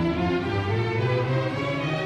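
String quartet playing classical music, violin and cello lines heard together: the strings' theme that stands for the character Reed in this orchestral tale.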